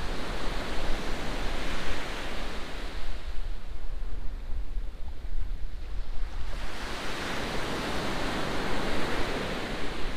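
Sea waves breaking and washing on a shingle beach, the surf swelling, easing and swelling again, with wind rumbling on the microphone underneath.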